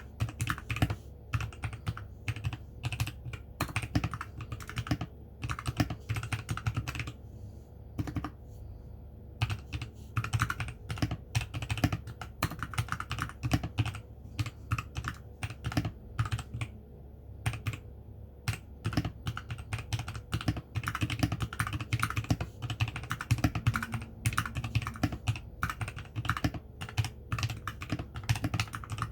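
Continuous typing on a mechanical keyboard with lubed Outemu Brown tactile switches: a fast, irregular stream of key clacks, broken by a couple of brief pauses.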